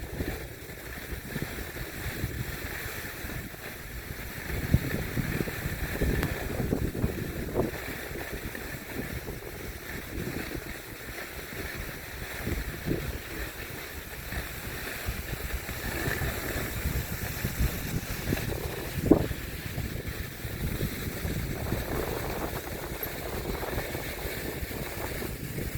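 Wind buffeting the microphone over the rushing scrape of a board sliding down a snowy slope, with a few sharp knocks, the loudest about 19 seconds in.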